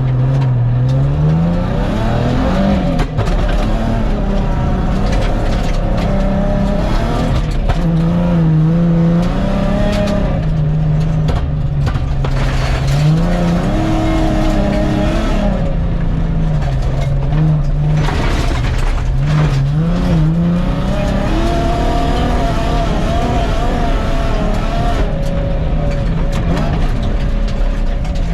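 Nissan 350Z drift car driven hard on a gravel rally stage: the engine revs up and drops back again and again through the gears, with frequent short knocks and clatter from the rough surface.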